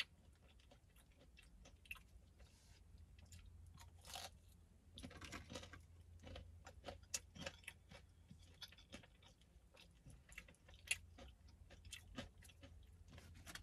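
Quiet close-up chewing of Popeyes fried chicken: a run of irregular soft crunches and mouth clicks.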